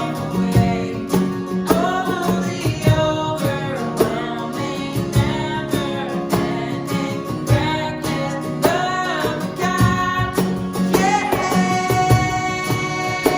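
Contemporary worship song performed live by a church worship band: a voice singing over strummed acoustic guitar and other instruments with a steady beat.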